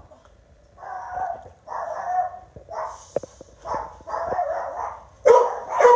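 Dog barking in a run of separate barks about once a second, louder near the end, set off by a knock at the door.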